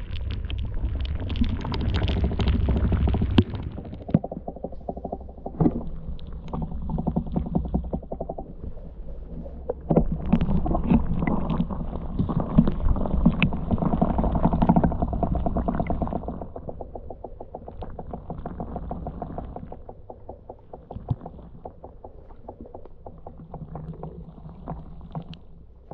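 Muffled underwater sound picked up by a submerged action camera: a low water rumble with scattered clicks and knocks, swelling twice and fading near the end.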